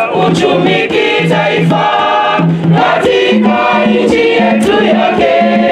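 Choir of men and women singing a song in parts, with low held notes under the melody, accompanied by regular hand-drum beats on conga drums.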